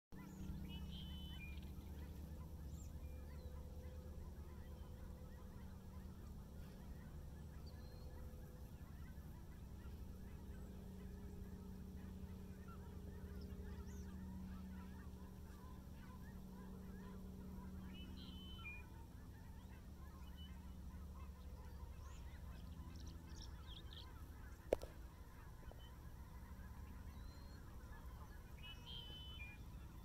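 Faint outdoor background with a steady low rumble. A few short, distant bird calls come near the start, midway and near the end, and there is one sharp click about 25 seconds in.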